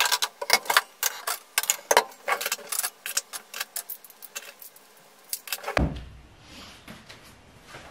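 Dishes and kitchenware clinking and clattering as they are lifted from a wire drying rack and put away in a cabinet, a quick run of sharp clicks and knocks. About six seconds in there is a low thump, and the handling then goes quieter.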